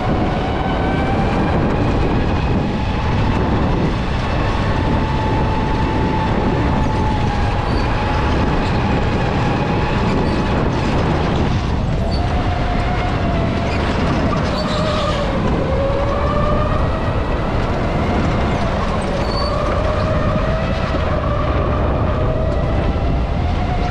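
Electric go-kart running at speed: the motor's whine rises and falls in pitch as the kart speeds up and slows, over a steady rumble.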